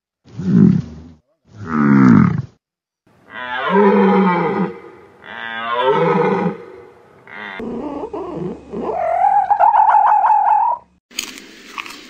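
A run of different wild animal calls with short gaps between them. First two short, low, rough crocodile growls, then two long bellowing calls whose pitch slides downward, of the kind a buffalo gives. Near the end come a lower rough call and then a longer, higher, wavering cry.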